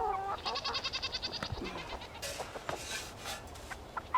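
Goat bleating: a wavering call right at the start, followed by a rapid pulsing sound higher up for about a second, with scattered clicks. The goats are calling out because they are waiting to be fed.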